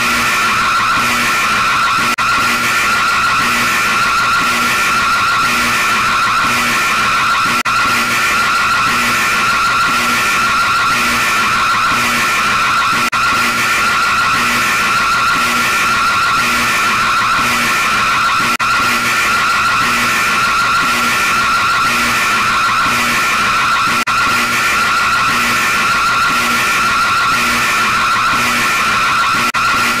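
Emergency alert system (EAS) alarm sounding without a break: a steady, loud high tone with an even pulsing of about two beats a second.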